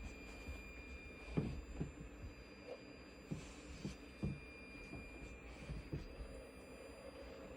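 Chauvet Intimidator Free 60 ILS moving-head light giving off a faint, steady high-pitched whine while its lamp is on. This is the faulty noise the unit makes once the lamp turns on. The whine breaks off briefly about a second and a half in and again near the middle, with soft low knocks scattered through.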